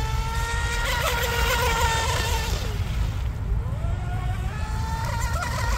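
Lipo-powered RC mono boat's electric motor whining at speed, with a hiss of spray. The whine holds a high pitch, drops away about two and a half seconds in, then climbs again a second later.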